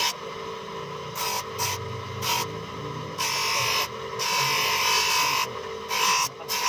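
Electric bench grinder running with a steady hum while a long steel knife blade is pressed against its abrasive wheel in repeated passes. Each contact is a harsh grinding hiss of steel on stone, several short ones and a longer one in the middle.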